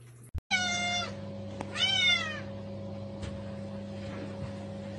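Domestic cat meowing twice, two short calls about a second apart, over a steady low hum.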